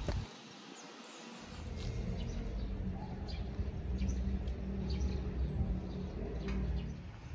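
Outdoor ambience: scattered short bird chirps over a steady low rumble that starts about a second and a half in.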